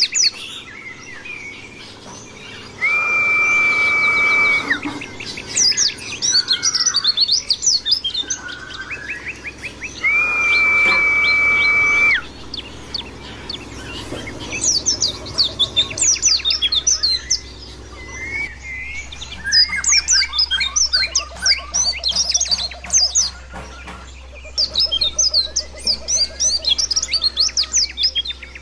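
White-eye (pleci) singing: fast, high twittering phrases of rapid chirps, broken twice by a long, level whistle lasting about two seconds.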